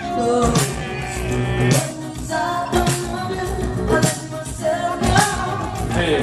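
A live band with a singer performing during a stage sound check: vocals over drums and instruments, with a strong hit every second or so.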